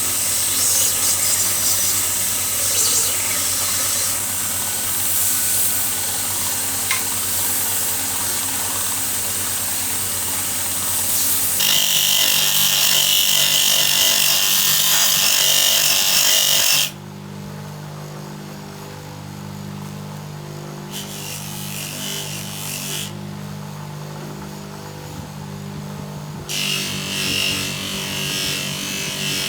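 Electric power tool sanding and polishing a steel adjustable wrench: a motor runs steadily while the metal is rubbed against it. The sound changes abruptly several times, with a quieter stretch in the middle, as the tool or pass changes.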